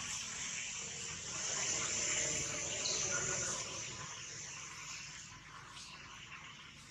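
Steady high-pitched insect chorus hiss, swelling a little about two seconds in and slowly fading toward the end.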